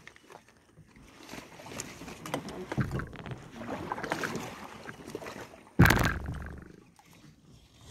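Rustling and splashing noises from a kayak as a hooked fish is worked out from under waterside vegetation, with one sudden loud noise about six seconds in.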